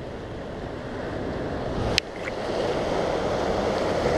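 Surf washing over a rocky shore, with wind buffeting the microphone; a single sharp click about two seconds in.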